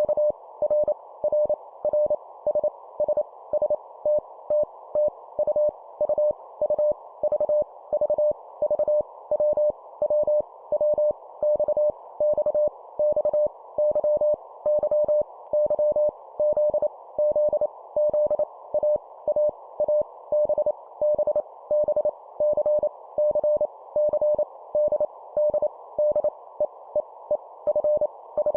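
Morse code (CW) at 25 words per minute: one steady mid-pitched tone keyed on and off in rapid dots and dashes, each letter sent three times over. Between the elements a faint hiss lies under the tone.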